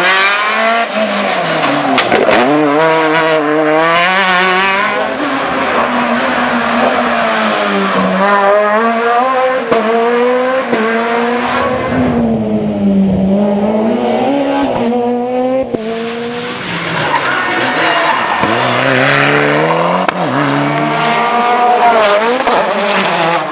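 Rally car engine revving hard, its pitch climbing and falling back with each gearshift. About halfway through the engine drops to a low, slower pitch, then climbs through the gears again.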